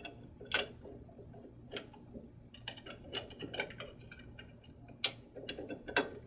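Irregular metallic clicks and light clinks of an Allen wrench working screws into a metal mount, with the sharpest clicks about five and six seconds in.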